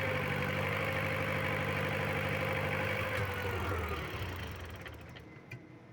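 Isuzu diesel generator engine running steadily, then shut off about three seconds in, its pitch falling as it runs down to a stop.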